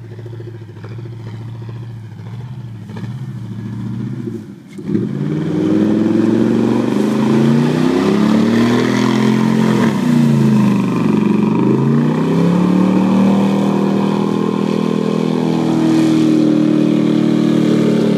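Pickup truck's V8 engine running at a steady note, then about five seconds in much louder, revving up and down again and again as the wheels spin in mud on worn tyres, with mud spraying off the tyres.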